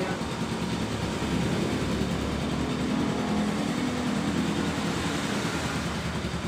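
Motorcycle engine running steadily with a low hum over a wash of noise; the hum grows stronger through the middle. Its oil has been dosed with EGB Safety Engine Lube.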